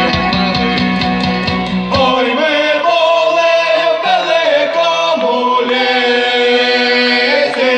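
Live amplified band playing loud through the stage PA: singing over acoustic guitar and violin. The bass and drums drop out about two seconds in and come back in around five seconds.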